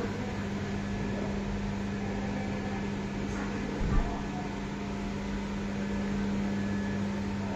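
Steady low mechanical hum of room equipment, with a single brief thump about four seconds in.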